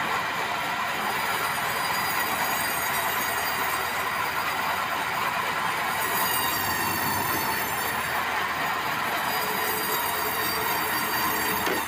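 Sawmill blade cutting lengthwise through a large, very hard, dry bengkirai (yellow balau) log: a steady loud screeching whine of many high tones over the rasp of the cut, wavering in pitch about halfway through.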